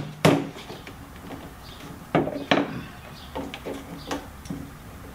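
A hammer strike on a PVC pipe frame just after the start, then two lighter knocks about two seconds in and a few small clicks of the PVC pipe and fittings being handled.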